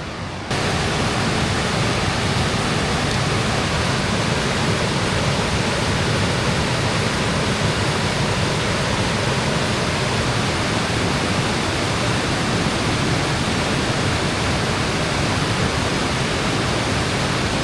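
Rushing water of a fast mountain stream, a steady, loud hiss that starts abruptly about half a second in and holds even throughout.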